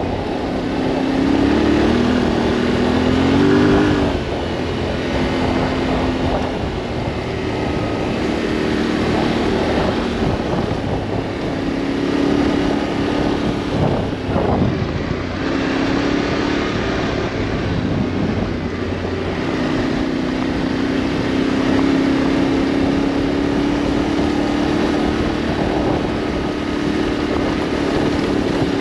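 Adventure motorcycle engine running under way on a gravel track. Its pitch climbs in steps a few seconds in as the rider accelerates through the gears, falls away briefly around the middle, then holds steady.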